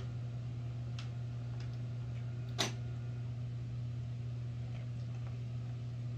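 A dog nosing a plastic Puppod treat toy on carpet, with a few faint clicks and one sharper plastic knock about two and a half seconds in, over a steady low hum.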